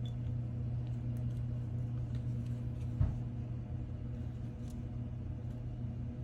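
Steady low electrical hum, with a few faint small clicks and one soft knock about three seconds in.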